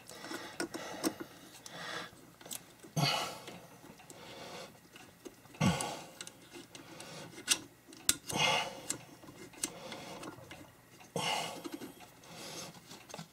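Small clicks, taps and rubbing as an antenna coax connector is handled and screwed onto the antenna socket at the back of an Anytone D578UV mobile radio. A few louder rustles come about every three seconds.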